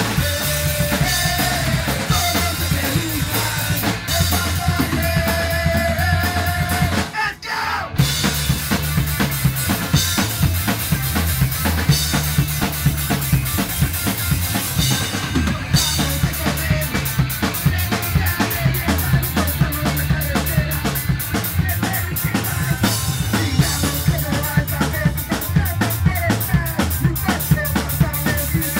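Rock band playing live: electric guitars and a drum kit with sung vocals. The band stops for a moment about seven seconds in, then comes straight back in.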